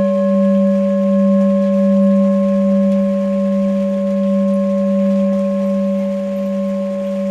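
Tibetan singing bowl struck once at the start and ringing on, a deep hum with fainter higher overtones above it, its loudness slowly swelling and ebbing as it sustains.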